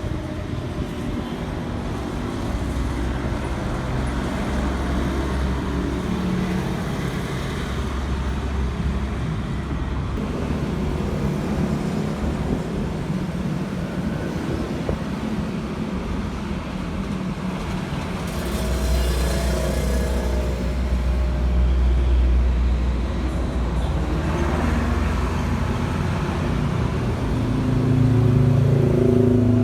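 Road traffic: vehicles passing with a continuous low rumble that swells louder about two-thirds of the way through and again near the end.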